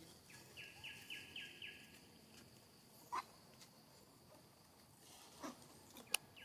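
Quiet outdoor ambience with a high, quick run of five chirps early on, repeated calling from a bird or insect. A few short, sharp clicks or snaps are heard, the loudest near the end.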